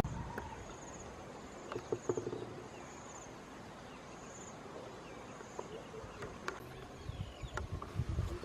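Forest ambience with an insect chirping in short, high, pulsing trills, repeated several times, then faint rustling and soft knocks near the end.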